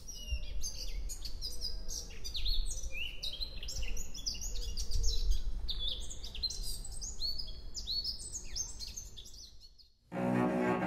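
Several birds chirping and calling in quick, overlapping sweeping chirps, fading away near the end. In the last second, bowed string music starts.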